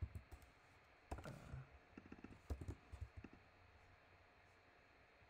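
Computer keyboard being typed on: short clusters of faint key clicks that stop about three and a half seconds in.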